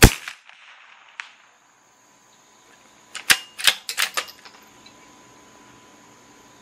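A single shot from a CZ 457 bolt-action .22 LR rifle firing subsonic Norma Tac-22, right at the start and dying away quickly. About three seconds later comes a quick run of sharp metallic clicks as the bolt is worked to eject the spent case and chamber the next round.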